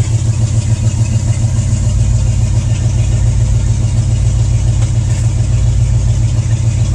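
International Harvester 345 V8 idling steadily while it warms up, heard from inside the pickup's cab, running evenly with a regular pulsing beat.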